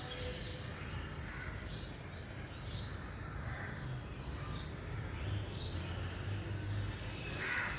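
Bird calls: several short calls scattered through, the loudest one near the end, over a steady low background rumble.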